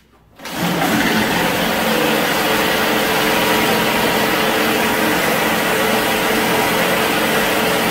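Small engine of a homemade tracked tank running steadily.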